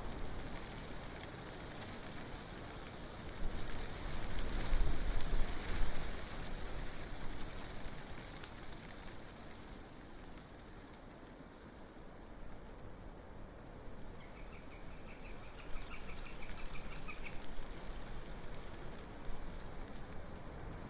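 Wind blowing through leaves, a steady rustling hiss that swells in a gust a few seconds in and dies down in the middle. Past the middle a small bird gives a rapid chirping trill lasting about three seconds.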